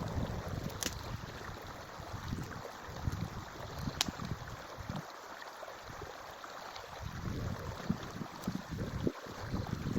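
Wind buffeting the microphone in uneven gusts over a steady rush of stream water, easing off for a couple of seconds midway. A couple of sharp clicks, one about a second in and one near the middle.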